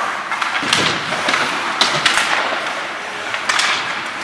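Ice hockey play: skate blades scraping across the ice, with several short, sharp scrapes and knocks.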